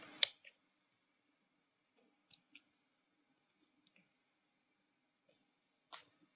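Sparse small clicks and taps of a plastic pry tool working against a laptop display bezel, with one sharper click just after the start and a few faint ones after it.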